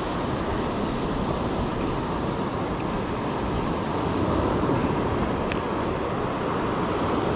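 Steady rush of wind on the microphone mixed with breaking ocean surf, with a few faint ticks.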